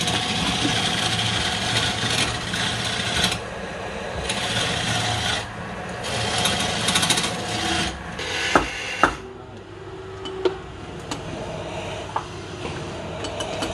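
Rough scraping and rubbing of a wooden lathe blank against the lathe's metal as it is fitted, in uneven strokes with short pauses, then two sharp knocks and a few lighter clicks over a faint hum.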